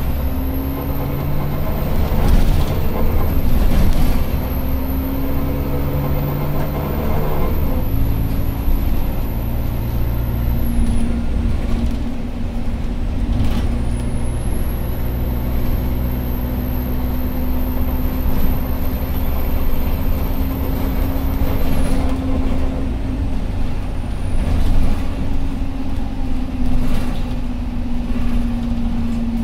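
Inside an Alexander Dennis Enviro200 bus under way: a steady engine and drivetrain drone, its note dropping around eight seconds in and again near twelve, with a few short knocks and rattles from the body. A thin, very high whine rises, holds and falls away twice.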